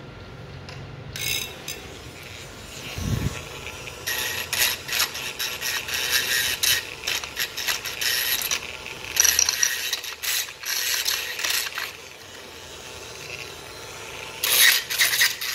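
A metal tool scraping and scrubbing at corroded battery terminals inside a used 9.6 V cordless drill's battery socket: metal rasping on metal in irregular bursts of quick clicks. The corrosion on the terminals comes from acid vapour given off by an old battery.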